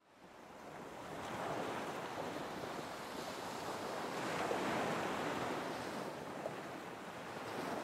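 Ocean surf washing in a steady hiss with slow swells, mixed with some wind, fading in over the first second or so.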